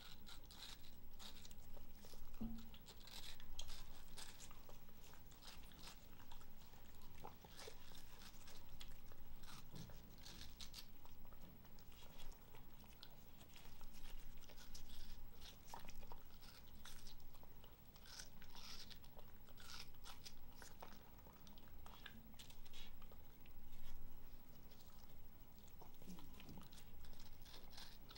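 Papillon dog biting and chewing watermelon, close-miked: irregular crunchy bites and chewing.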